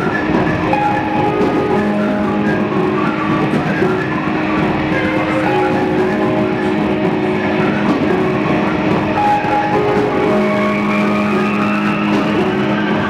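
Instrumental music with long held notes, a plucked-string sound among them, and a tone rising gradually near the end.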